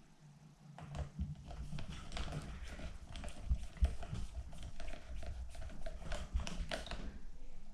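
Irregular small clicks and taps of hands and a tool on the plastic wheel and hardware as a rear paddle tire is fitted and secured on an RC car.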